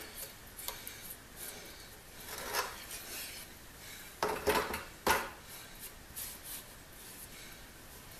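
Large, freshly derusted steel tin shears being opened and closed by hand, the blades scraping against each other at the riveted pivot in a few short strokes. The loudest strokes come about four to five seconds in.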